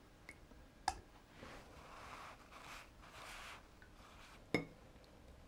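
Large paintbrush mixing watercolour paint in a plastic palette: faint soft brushing strokes, with two sharp clicks, one about a second in and one near the end.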